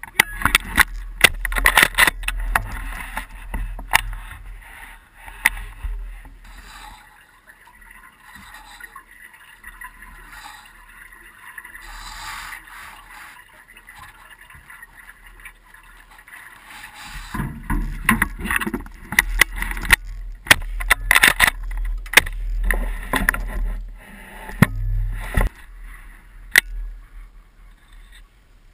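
Handling noise on a shotgun-mounted action camera: scattered sharp knocks and clicks with bursts of low rumble, busiest in the first few seconds and again in the second half, quieter in between.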